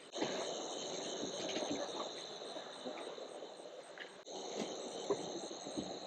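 Crickets or other night insects trilling steadily in a fast, even high-pitched pulse, over a low rustling noise. Both drop out for a moment about four seconds in.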